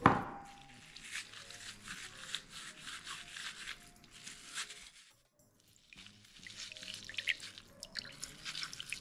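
Ripe watermelon flesh squelching and crackling as it is squeezed by hand in a metal mesh sieve, with juice dripping into a bowl below. A sharp knock comes right at the start, and there is a short pause midway.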